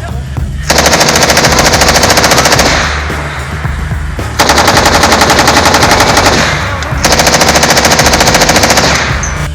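Automatic machine-gun fire in three long bursts of about two seconds each, rapid and loud, with brief pauses between them.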